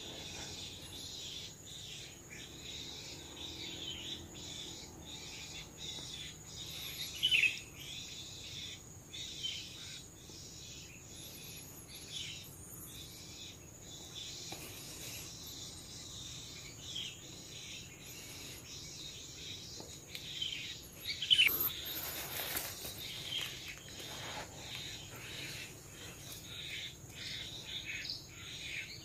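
Forest ambience: a steady high insect hum with scattered bird chirps and calls, one louder call about a quarter of the way in. A sharp, louder noise comes about three-quarters of the way through.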